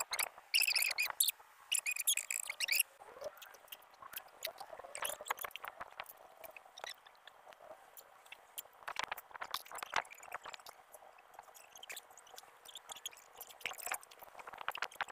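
High squeaky chirping for about the first three seconds, then scattered splashes and clatter as water is thrown from a plastic basin onto a tiled rooftop floor.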